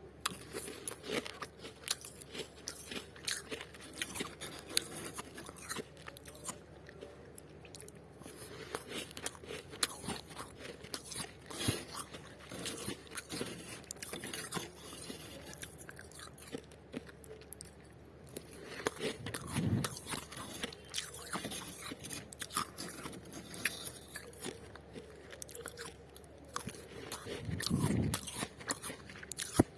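Freezer frost being bitten and chewed close to the microphone: a dense, irregular run of crisp crunches and crackles, with two deeper swells, one after about twenty seconds and one near the end.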